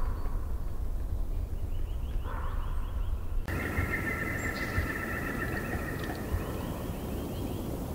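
Bird calls in quick chattering runs: a short burst about two seconds in, then a longer stretch starting about three and a half seconds in, over a steady low rumble.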